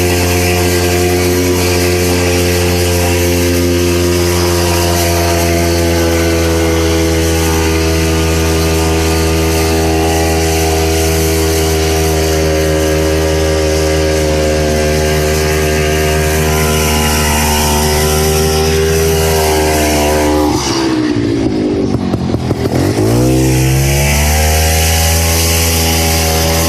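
Vintage Ski-Doo snowmobile's two-stroke engine running steadily at speed. About twenty seconds in the revs drop sharply, then climb back up over a few seconds and hold steady again.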